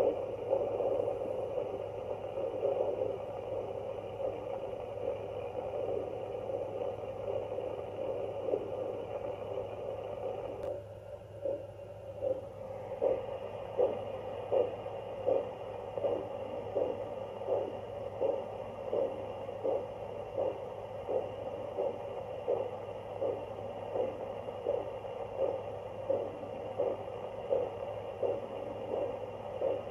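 Fetal Doppler monitor's speaker giving a steady whooshing static. Just after ten seconds a click and a brief drop are heard as the probe shifts, and then a regular whooshing pulse of about one and a half beats a second comes through. That rate fits an adult pulse, not a fetal heartbeat.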